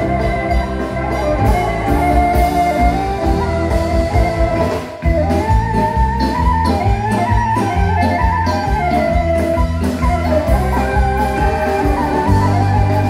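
Live Bulgarian wedding music from a band led by clarinet and accordion, playing a fast horo over a steady bass beat. The music dips briefly about five seconds in.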